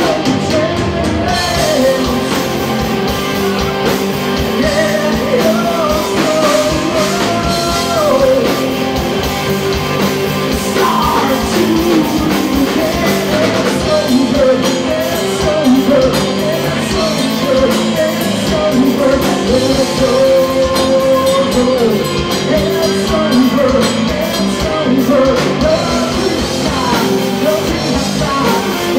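Live rock band playing a song at full volume, with a lead melody wandering over the band.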